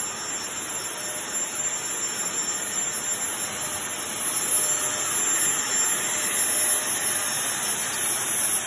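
Backpack disinfectant fogger running continuously: a steady hiss of spray with a high-pitched whine, growing louder about halfway through.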